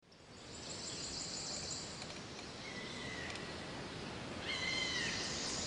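Wild outdoor ambience fading in: a steady high insect drone with animal calls over it, a thin, slightly falling whistle about three seconds in and a louder call with several stacked tones near the end.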